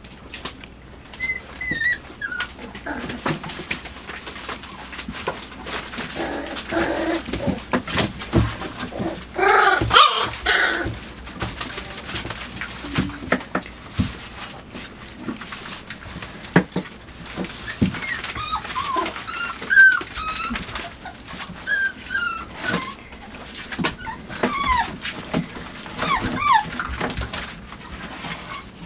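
Five-week-old chocolate Labrador puppies playing: short high-pitched whines, yips and squeaks among scratching, scraping and chewing on a cardboard box.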